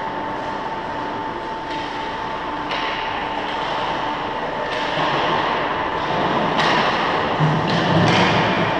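Ice rink ambience: a steady hum carrying a thin steady tone, with skate blades scraping the ice. The scraping grows louder in stretches from about halfway through and is loudest near the end.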